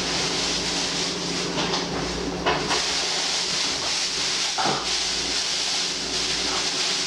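Steady hissing background noise with a low hum under it, and a couple of brief knocks about two and a half and four and a half seconds in.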